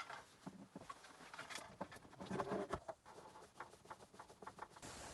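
Faint, irregular clicks and taps, with a few light scrapes, as small hardware and tools are handled.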